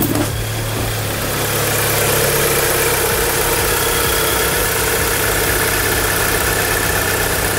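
Audi S3 8P's turbocharged 2.0-litre four-cylinder engine idling steadily, heard close up from the open engine bay, growing louder about a second and a half in. It is running just after an oil change, so the fresh oil works round the filter and oilways. A short knock sounds at the very start.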